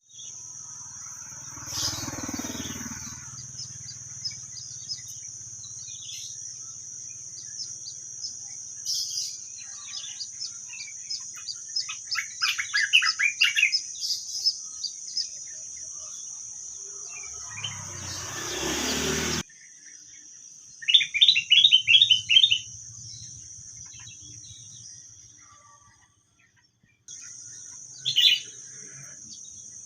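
Wild birds chirping and calling, with quick runs of repeated notes twice in the middle and a short call near the end, over a steady high-pitched drone. Twice a broad rushing noise swells up, the second lasting over a second before cutting off.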